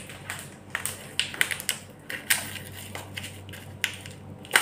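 Scattered light taps and clicks of small things being handled and set down in a kitchen, over a steady low hum.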